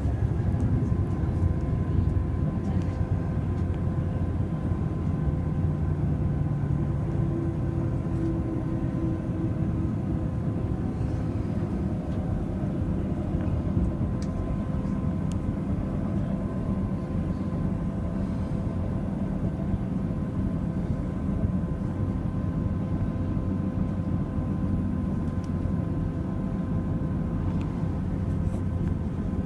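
Passenger train running steadily, heard from inside the carriage: a continuous low rumble of engine and wheels with a steady hum over it.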